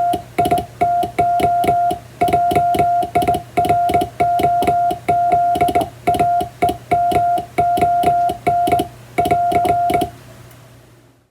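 Morse code hand-sent on a straight (vertical) telegraph key: a steady mid-pitched sidetone beep keyed into dots and dashes, with a sharp click at each press and release of the key. The sending stops about ten seconds in.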